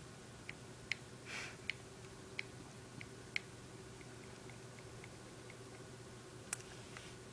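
Small plastic eyeshadow compact clicking and tapping faintly under a fingertip as the powder is dabbed, in irregular small clicks, a few louder ones at first, then softer ones, and one sharper click near the end. There is a low steady room hum behind.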